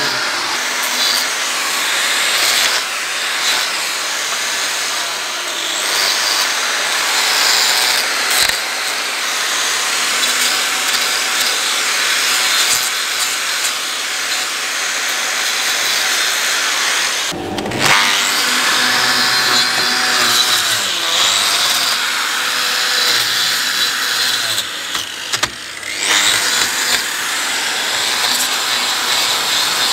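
Angle grinder with a hoof-trimming disc cutting and shaving a cow's hoof horn: a steady, loud, high-pitched grinding rasp, briefly broken off a couple of times as the disc is lifted and set back.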